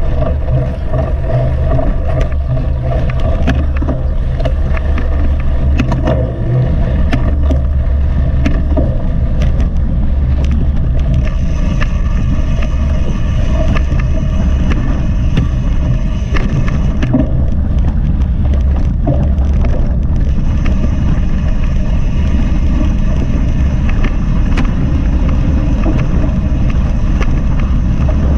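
Steady, loud rumble of wind and vibration on a GoPro carried on a moving mountain bike, with scattered clicks and rattles from the bike over rough ground.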